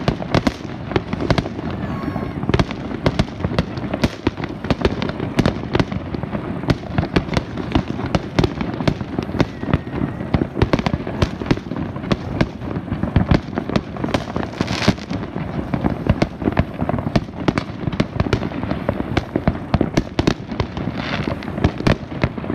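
Aerial fireworks display: a continuous barrage of shell bursts and bangs, several each second, without a pause.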